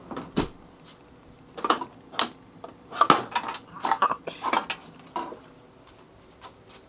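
Metal sockets and hand tools clinking and clattering in a tool chest drawer as hands rummage through it: a string of sharp metallic clinks.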